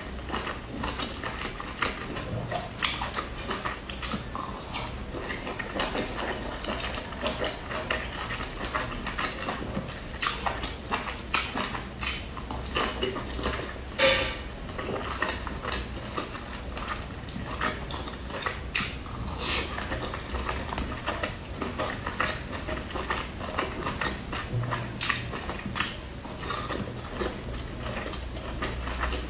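Close-up mouth sounds of eating steamed dumplings: wet chewing, lip smacks and slurps, with occasional clicks of the dumpling or fingers against a ceramic sauce bowl. One louder, short sucking sound about halfway through.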